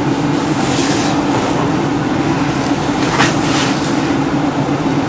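Steady low mechanical hum of a running motor or machine, with a couple of brief hissing rustles.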